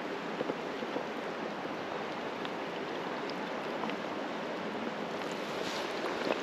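A small creek running: a steady rush of flowing water, with a few faint clicks.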